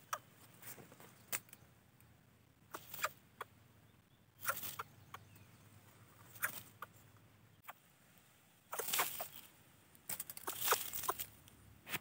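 Short crackling rustles of dry leaf litter and twigs, coming every second or two, some in brief clusters.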